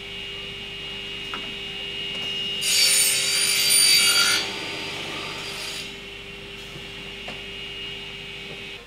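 Double mitre saw running with a steady hum, its blades cutting through a uPVC window profile once, a loud harsh rasp lasting under two seconds about three seconds in. A few light clicks as the profile is handled.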